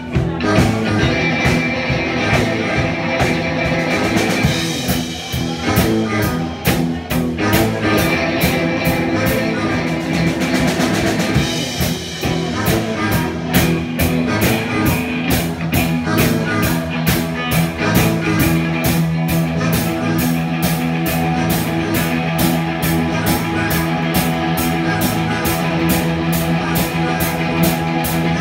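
Rock music with a drum kit keeping a steady beat under guitar.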